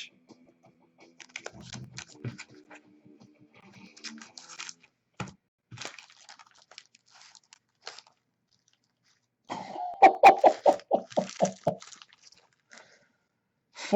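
Faint clicks and rustling of trading cards and their packaging being handled, then, about ten seconds in, a short run of quick vocal pulses from a man, like a cough or a burst of laughter.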